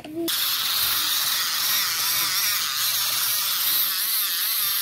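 Small DC motor of a homemade toy tractor switched on about a quarter second in and running steadily, whirring through its drive shaft and bevel gears.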